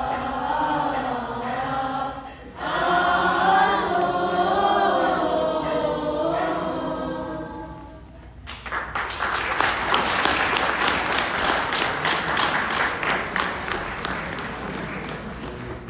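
Children's choir singing, with a brief break about two and a half seconds in, the song ending about eight seconds in; then an audience applauds, the clapping fading toward the end.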